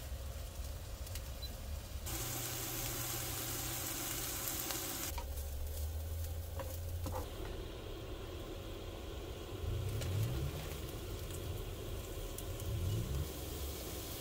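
Chopped onion, garlic and ginger, then coleslaw, sizzling in a hot skillet on an induction cooktop, with stirring. The sizzle comes and goes in short pieces and is loudest a couple of seconds in.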